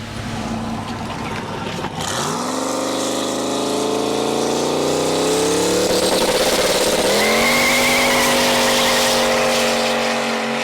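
Car engine accelerating hard, its pitch climbing steadily for a few seconds, then dipping at a gear change and holding steady as the car settles into a cruise, with road and wind noise underneath.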